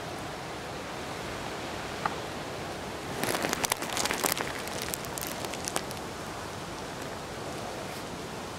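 Strong wind blowing across the microphone, a steady rush, with a burst of sharp crackling and buffeting from about three seconds in to nearly six seconds.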